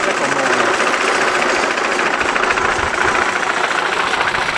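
McCormick No. 7 sickle mower running in gear, its wheel-driven gears and pitman working the 5-foot sickle back and forth in a rapid, steady clatter.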